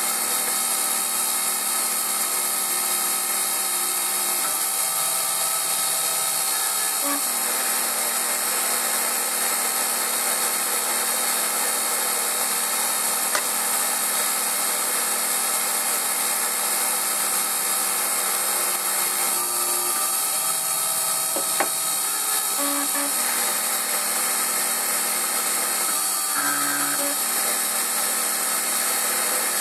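Emco Compact 5 CNC lathe turning an aluminium bar: the spindle and feed drives run steadily with a high whine and hiss as the tool cuts, with a few short changes in tone.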